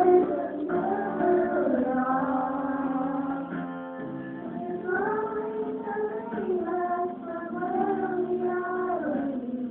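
A song: a single voice singing a slow melody with long held notes over instrumental accompaniment.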